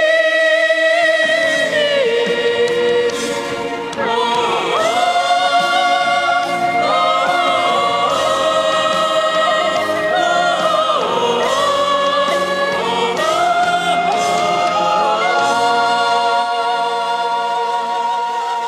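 Choral singing: a group of voices singing a song in long held notes that slide between pitches.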